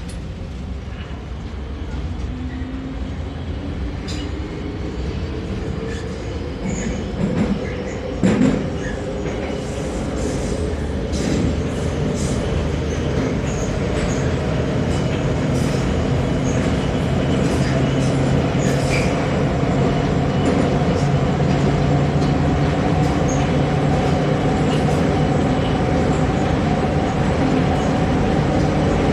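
81-717.5M metro train pulling out of a station and running into the tunnel. Wheels on the rails and traction-motor hum get louder over the first dozen seconds, then run steadily, with a few sharp clacks from the track early on.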